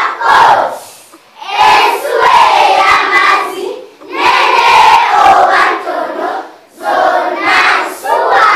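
A large group of young children singing together in loud phrases, with short breaks between the lines.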